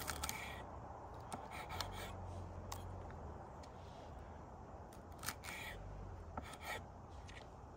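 Kitchen knife slicing green onion stalks on a wooden cutting board: scattered crisp cuts and taps at an uneven pace, some in quick pairs.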